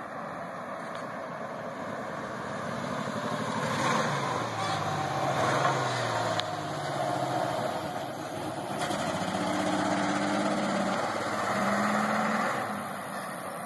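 Ford Ranger's 4.0-litre V6, with two dead cylinders and a third failing, pulling hard at full throttle as the truck drives off. The engine note rises and drops several times before fading near the end.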